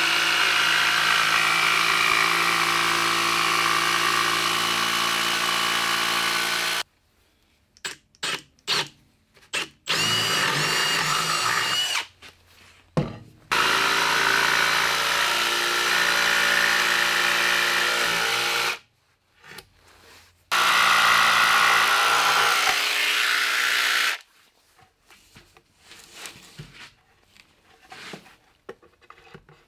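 Cordless Milwaukee FUEL brushless jigsaw cutting through plywood. It runs in several long stretches of a few seconds each, with quick stop-start blips of the trigger between them. It stops about six seconds before the end, leaving only light knocks of the saw and panel being handled.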